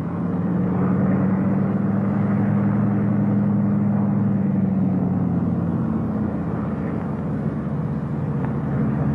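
Steady drone of a Lockheed P-38 Lightning's twin Allison V-12 engines throttled back on landing approach, its pitch shifting slightly after about six seconds.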